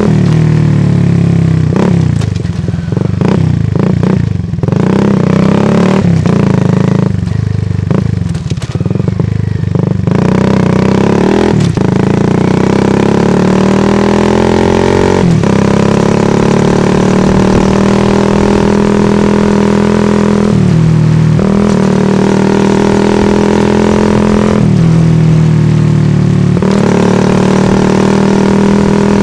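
Exhaust note of a Shineray Phoenix 50cc motorcycle with its stock Fortuna muffler, heard close to the tailpipe while riding. The engine runs continuously, uneven in the first stretch, then holding steady, with the pitch dipping and rising again a couple of times as the throttle changes.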